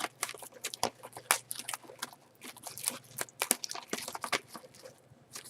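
Hands handling a sealed box of trading cards: a run of irregular clicks and crackles, like the box's plastic wrapper being handled.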